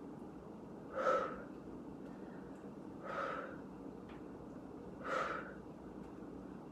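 A woman's sharp effort exhales, three of them about two seconds apart, one with each lift of a kneeling oblique side-bend exercise.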